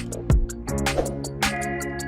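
Background music with a steady beat: sustained pitched notes over regular percussion hits about twice a second.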